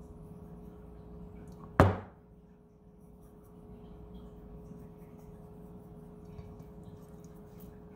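One sharp knock about two seconds in, over a steady low hum.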